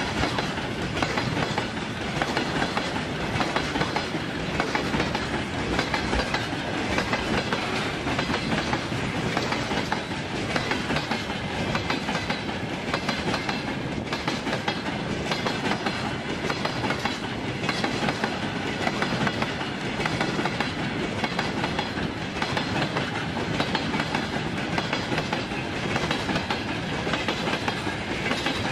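Long freight train of loaded flatcars rolling past close by: a steady rumble and rattle of wheels on rail with clickety-clack over the joints.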